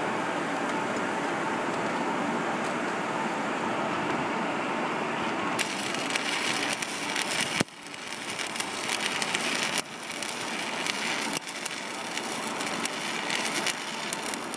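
Stick-welding arc crackling and sizzling, starting about five and a half seconds in and breaking off sharply three times as the arc is stopped and struck again. Before it, a steady rushing noise.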